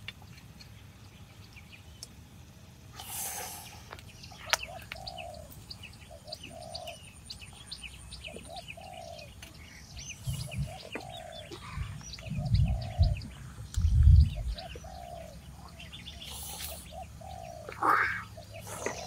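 Birds calling: a short low call repeated every second or so over high chirping. Several dull low thumps come about halfway through and are the loudest sounds, with brief rustles before and after.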